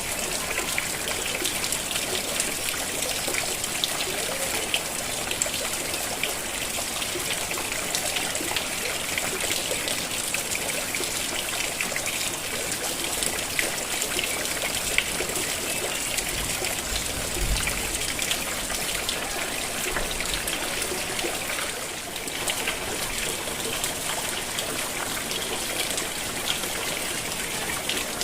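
Steady rain falling, with water trickling and dribbling and many small drop ticks throughout.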